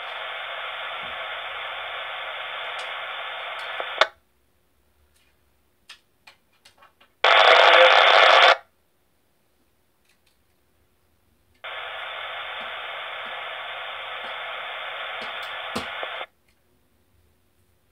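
Radio scanner playing back recorded transmissions: a steady stretch of radio hiss that cuts off after about four seconds, a few faint clicks, a short louder burst of static, then a second long stretch of hiss that cuts off sharply.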